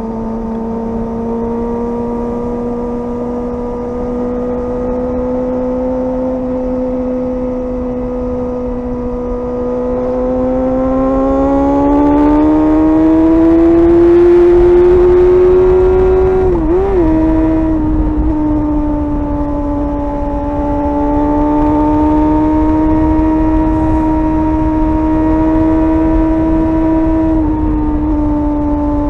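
Suzuki GSR 600's inline-four engine running at steady high revs while riding. Its note climbs in pitch as the bike accelerates about a third of the way in, wobbles briefly about halfway through, then holds steady at the higher pitch.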